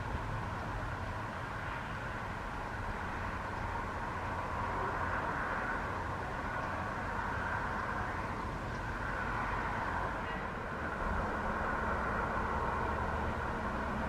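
Boeing 737 MAX's CFM LEAP-1B turbofan engines running steadily, a broad jet hiss over a low rumble, with wind buffeting the microphone. The sound grows somewhat louder about four seconds in and again near the end.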